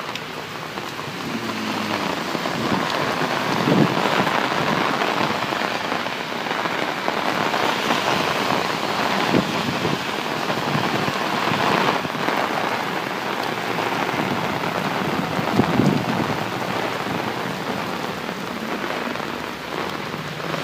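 Heavy rain pouring down and drumming on an umbrella overhead, a dense steady downpour. A few brief louder swells come through about 4, 9, 12 and 16 seconds in.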